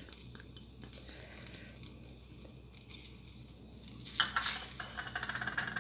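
Silicone spatula scraping sauce from a small bowl and stirring it into a steel saucepan of simmering sauce, with light taps and clinks. The stirring gets louder and quicker from about four seconds in.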